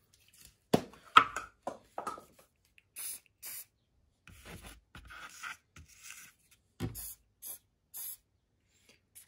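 Aerosol can of hairspray sprayed in short hissing bursts, two about three seconds in and two more near the end, with a few knocks and rubbing sounds from the can being handled.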